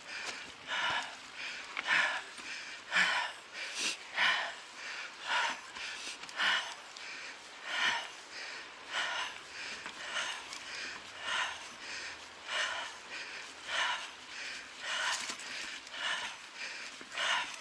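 A person breathing hard and rhythmically under the effort of a long uphill climb, loud and close, at about three breaths every two seconds.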